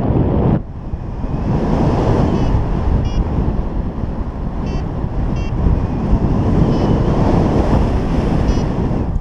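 Wind buffeting a GoPro's microphone during paraglider flight, a steady rushing with a brief lull about half a second in. Half a dozen short high beeps sound over it at uneven intervals.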